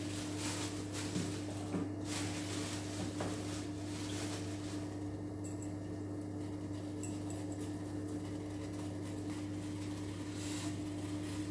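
Fresh ginger being grated on a small metal hand grater over a pot of tea water: faint, scattered scraping. A steady low hum runs underneath throughout.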